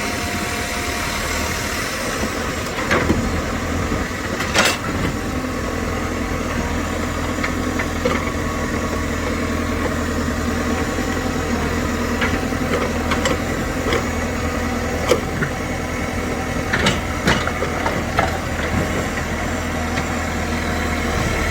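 Heavy earth-moving machine's engine running steadily at a low drone, with scattered sharp clanks every second or few seconds, loudest about four to five seconds in and again near seventeen seconds.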